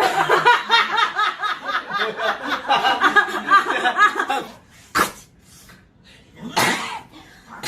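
Audience laughing in a burst of many quick, overlapping "ha" pulses that dies away after about four and a half seconds. A single sharp knock follows, then a short noisy rush near the end.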